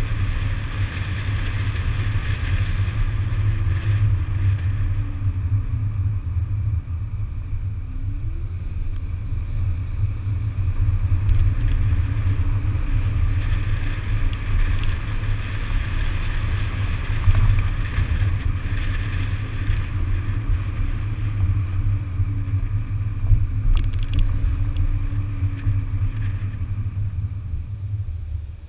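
A 2008 Audi A5 3.2 driving along, heard from a camera mounted low on its outside by the front wheel: a steady wind rumble over the microphone with tyre and road noise, and a faint engine note that rises and falls with speed. The sound drops away near the end.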